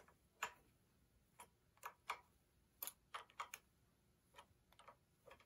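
Faint, irregular metal clicks, about a dozen of them, from a wrench on the nuts that lock a knife in a Delta 6-inch jointer's cutterhead as they are fully tightened.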